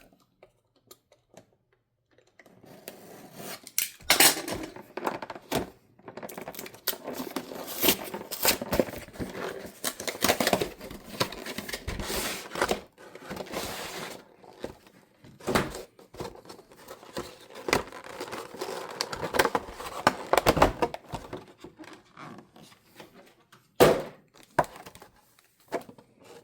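Cardboard trading-card box being torn open and its plastic-wrapped card packs pulled out: continuous rustling, crinkling and scraping with frequent small clicks and knocks, starting about two seconds in.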